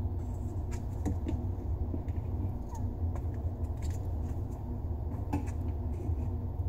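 Scattered light clicks and taps from hands handling the pop-up drain's pivot rod nut and plastic drain fittings under a bathroom sink while wrapping Teflon tape onto the threads, over a steady low hum.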